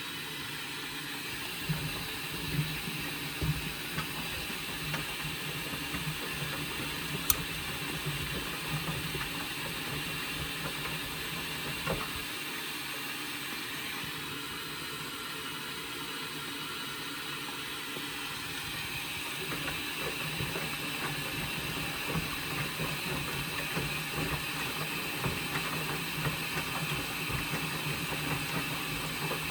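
Indesit front-loading washing machine running at the start of its rinse stage after draining: a steady mechanical hum with water noise and a few light clicks, the hiss growing a little louder about two-thirds of the way in.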